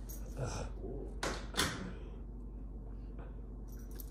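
Three short thumps, about half a second, a second and a quarter, and a second and a half in, the last the loudest, over a steady low hum.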